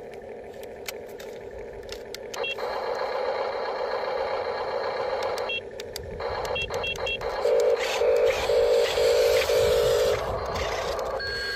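Radio-controlled construction models running: a steady whir of small electric motors and gears with scattered clicks. Short high electronic beeps sound a few times, then a lower beep pulses about five times, like a reversing beeper.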